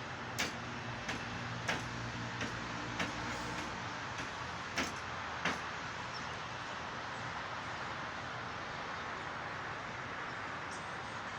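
Steady background noise with a low hum during the first three to four seconds, and a string of sharp clicks or taps roughly every half second to a second through the first half. The warning siren has not started yet.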